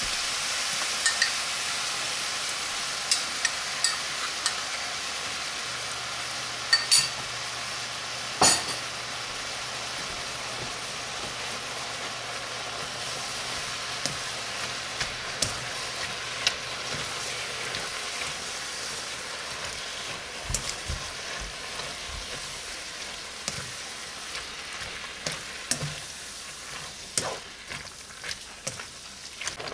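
Beef and red curry paste sizzling in hot oil in a wok, stirred with a slotted spatula that scrapes and knocks against the pan. The sizzle slowly grows quieter, with a couple of sharper knocks around seven and eight seconds in.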